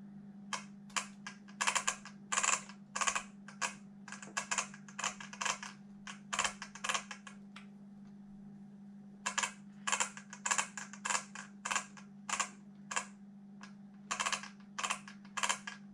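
Quick, irregular light clicks and taps of hard plastic parts on an Arrma Kraton RC truck's rear end being handled, about three a second in two runs with a short pause about halfway through. A steady low hum runs underneath.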